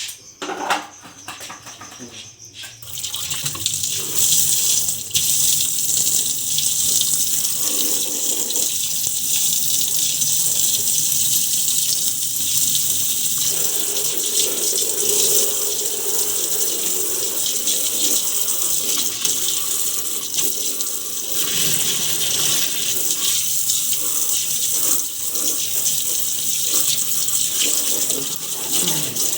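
Water running steadily, with a hiss like a tap or hose pouring, starting about three seconds in after a few light clicks.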